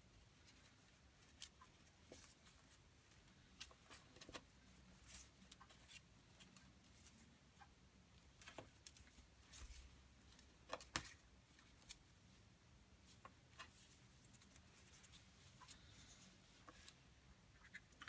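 Near silence, with faint scattered clicks and rustles of paracord being pulled and handled while cobra weave knots are tied.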